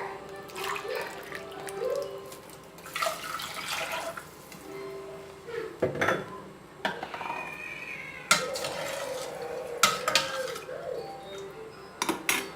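Water poured into a pan of simmering rasam, with a metal spoon or cup clinking against the pan several times, mostly in the second half.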